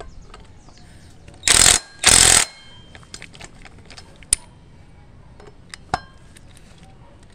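Cordless impact driver run in two short hammering bursts about a second and a half in, tightening the brake disc bolts into a motorcycle wheel hub, followed by a few light metallic clicks and taps.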